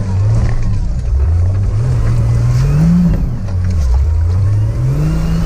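Turbocharged Nissan TB42 straight-six of a GQ Patrol competition truck revving up and down under load, heard from inside the cab. The engine pitch climbs about two to three seconds in, drops, then climbs again near the end.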